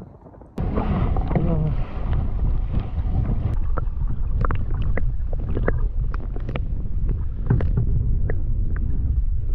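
Strong wind buffeting the microphone: a loud low rumble that comes on suddenly about half a second in, with many short sharp clicks scattered through it.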